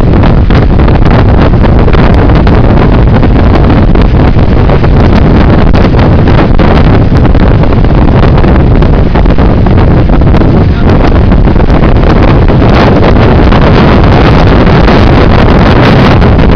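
Tropical-storm wind blasting across the camera microphone, a loud, unbroken rumble that overloads it, with heavy storm surf crashing on a rock jetty underneath.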